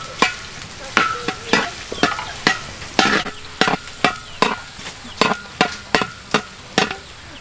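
A long-handled steel spatula scrapes around a large wok, stirring minced garlic as it sizzles in hot oil. The strokes come about twice a second.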